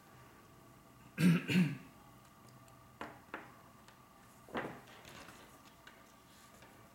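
A man clearing his throat twice in quick succession about a second in, followed by a few light clicks and a knock as a steel ruler is handled and set down on the cutting mat.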